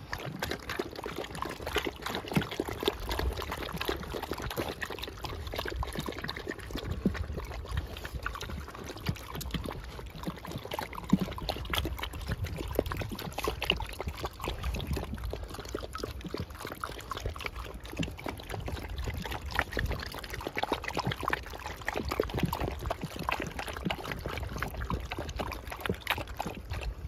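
Several Pyredane (Great Pyrenees × Great Dane) puppies lapping water from a tub: a continuous, irregular wet clatter of many tongues slapping and splashing the water.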